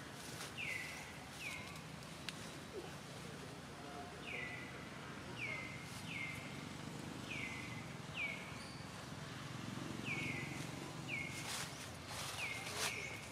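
Repeated short, high chirps, each sliding down in pitch, coming one or two a second over steady outdoor background noise, with a few brief rustling clicks near the end.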